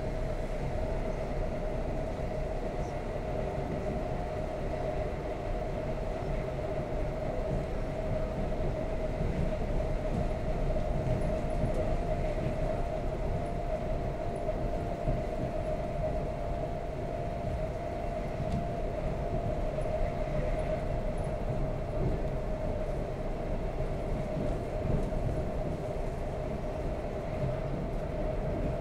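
Inside a passenger car of an ED4M electric multiple unit running at speed: a steady low rumble from the wheels and running gear, with a steady mid-pitched whine over it.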